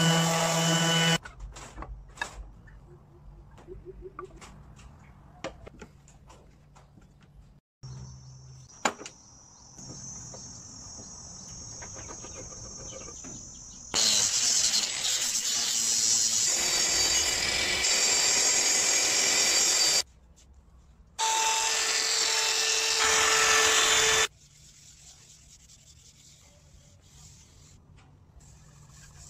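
Cordless power tools sanding wood in short takes. A random orbital sander runs at the start and stops about a second in. About halfway through, a cordless angle grinder with a sanding disc runs against the board for several seconds, followed by another few seconds of loud tool noise. Quieter stretches with small clicks lie in between and near the end.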